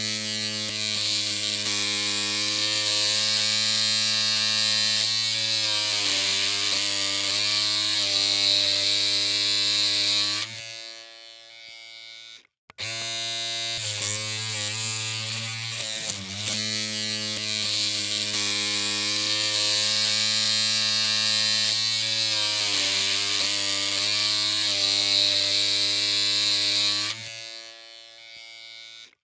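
Electric hair clippers humming steadily with a buzzing hiss above the hum. About ten seconds in the sound falls to a much quieter hum, cuts out for a moment, and starts again at full level; near the end it falls to the quieter hum once more.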